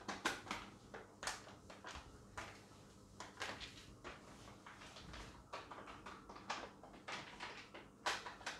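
Packet of tea premix crinkling and rustling as it is tipped and shaken to pour the powder into a plastic canister: irregular faint crackles.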